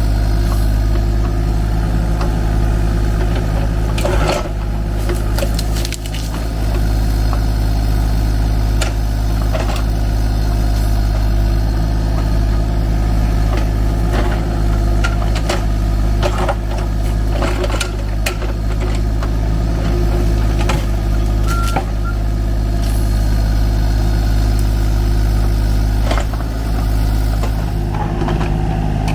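Kubota U35-4 mini excavator's diesel engine running steadily, with scattered knocks and clanks over the drone.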